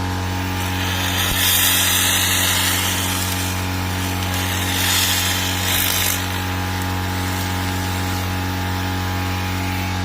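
Handheld fiber laser cleaning head firing in two bursts of crackling hiss as it strips the metal surface, the first about a second in and the second about halfway through. Under it runs the laser machine's steady electrical hum.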